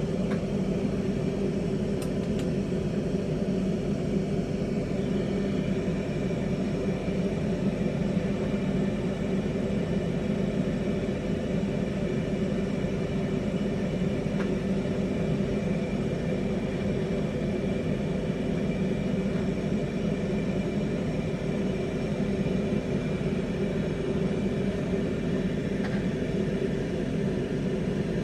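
Bench-mounted glassworking torch burning steadily, its flame running at a constant level throughout, with a few faint ticks.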